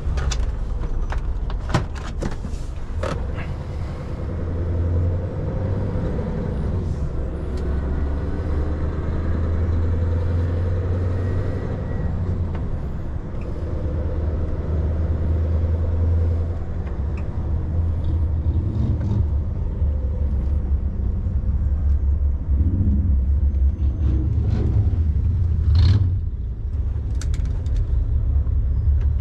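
Truck engine and road noise: a steady low rumble whose pitch drifts slowly up and down, with a few sharp clicks in the first few seconds and a louder knock about 26 seconds in.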